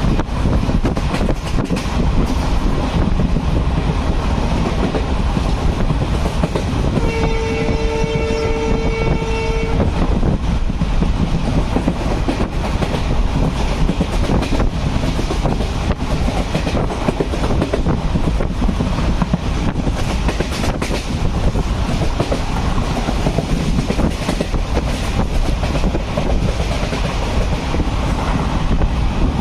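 Passenger train running along the track, a steady rumble with the clatter of wheels on rails. About seven seconds in the train's horn sounds one steady blast lasting about three seconds.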